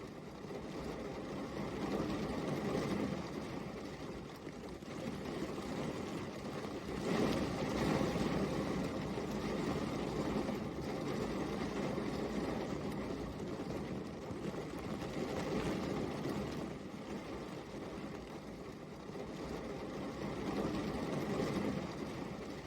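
Steady rain, a dense even hiss that swells and eases gently every few seconds.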